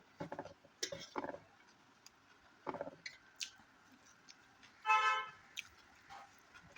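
Close-up eating sounds: short crunchy, moist bursts of chewing and mouth noise. About five seconds in there is one loud, short pitched tone lasting about half a second, like a horn beep.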